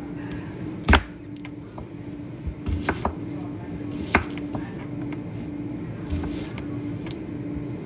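Chef's knife dicing an onion on a cutting board: a few irregular knocks of the blade on the board, the loudest about a second in.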